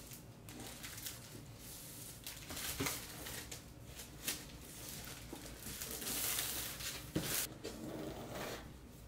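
Hands handling a MacBook Pro's cardboard box, rubbing and sliding on the card as it is lifted and turned. A few light taps stand out, the longest stretch of rustling about six seconds in.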